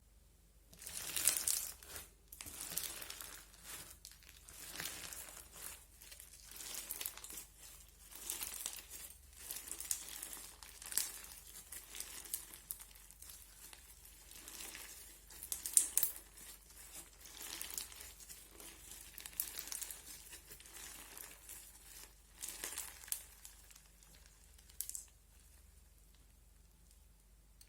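Crunchy slime being squeezed and kneaded by hand, giving irregular bursts of crackling with sharp clicks. The crackling stops a few seconds before the end.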